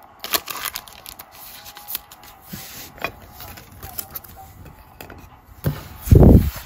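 Clear plastic card sleeve crinkling and rubbing as a trading card is slid into it, with small scrapes and clicks, then a loud dull thump about six seconds in.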